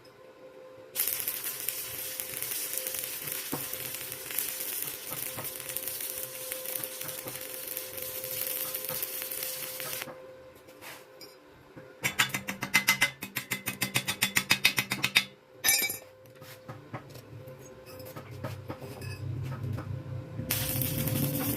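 Electric arc welding: the arc gives a steady crackling hiss for about nine seconds, then stops. After a pause there is a rapid run of sharp taps, about seven a second, for some three seconds, and near the end the arc starts crackling again.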